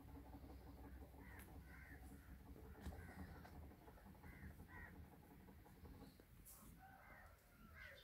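Birds calling faintly, with short calls repeating every second or so over a low background rumble.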